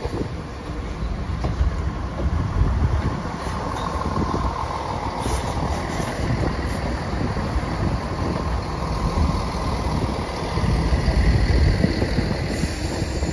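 West Midlands Railway Class 170 Turbostar diesel multiple unit running past along the platform line, a steady rumble of underfloor diesel engines and wheels on rail, with a faint steady whine in the middle.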